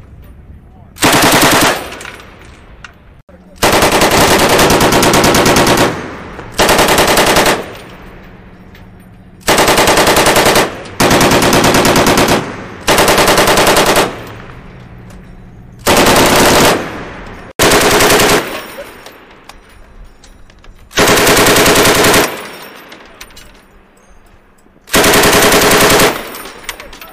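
Automatic fire from a 7.62 mm belt-fed machine gun in about ten separate bursts, each one to two and a half seconds long with pauses between, the longest a few seconds in. Each burst trails off in a brief echo.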